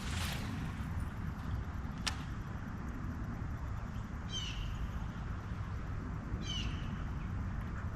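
A bird calls twice, each call a short run of quick notes falling in pitch, over a steady low rumble. There is one sharp click about two seconds in.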